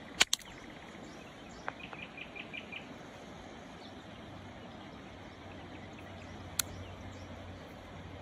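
Sharp clacks of a stone being struck to knock a corner off a rough, coarse-grained flint and test its quality: two quick clacks right at the start and one more about six and a half seconds in. A bird gives a fast run of about six short chirps about two seconds in.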